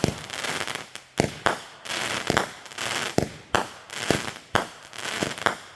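Aerial fireworks going off in a rapid barrage: about ten sharp bangs, roughly one or two a second, each followed by a crackling hiss as the shells burst.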